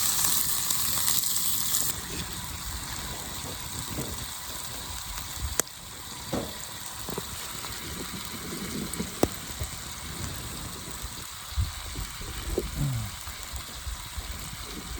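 Steak sizzling over a campfire: a loud hiss that drops away about two seconds in, leaving a quieter sizzle with occasional sharp crackles and pops.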